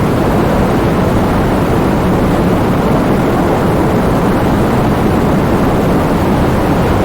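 Heavy rain driven by wind: a steady, dense rush of noise, heaviest in the low end, that holds level without any distinct drops or gusts.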